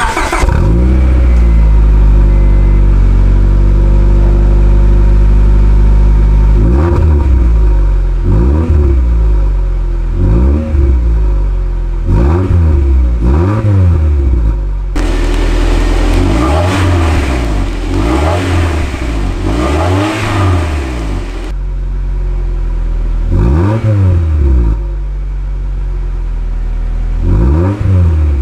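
2000 Honda Prelude's H22 four-cylinder VTEC engine running through a newly fitted RSR Exmag cat-back exhaust, heard at the tailpipe. It idles steadily, then from about seven seconds in it is revved again and again in short blips, each rising and falling in pitch.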